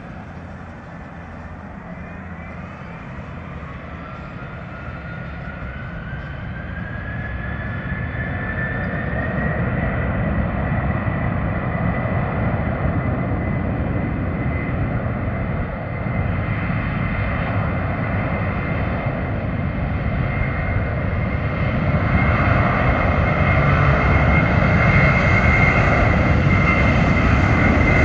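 Airbus A330-300's twin Pratt & Whitney PW4000-series turbofans spooling up to takeoff thrust: a whine that rises in pitch over the first ten seconds and then holds steady, over a deep rumble that grows steadily louder as the jet begins its takeoff roll.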